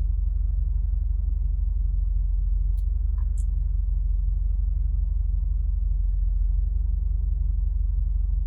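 Mercedes SLK engine idling steadily, a low, even rumble.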